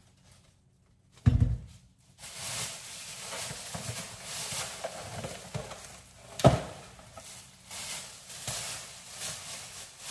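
Kitchen handling noise: a dull thump about a second in, then a steady rustling hiss, broken by a sharp knock about six seconds in.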